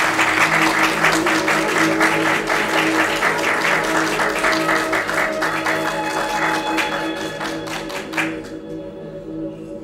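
Audience applauding, with music playing underneath. The clapping thins out and stops about eight seconds in, leaving the music.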